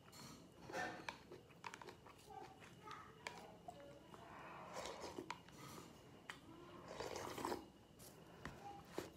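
Close-miked eating sounds: soup sipped from a plastic bowl held to the mouth, with chewing and small clicks. Two longer sips come about five seconds in and about seven seconds in.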